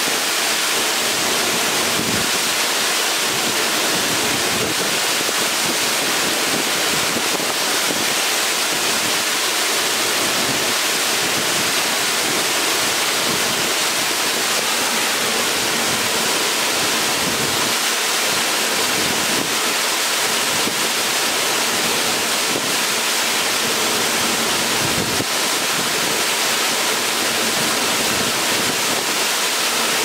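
Multi-tiered waterfall pouring over rock ledges into a pool: a steady, loud rush of falling water.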